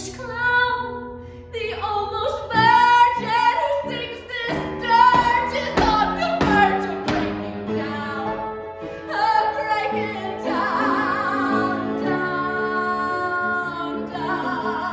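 A woman singing a musical-theatre song over piano accompaniment. About ten seconds in she holds one long note with vibrato.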